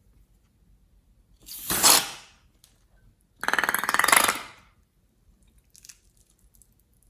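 Slime being squeezed and stretched, trapped air escaping in two loud bursts; the second is a rapid, buzzy crackle of popping air pockets. A few faint small clicks follow.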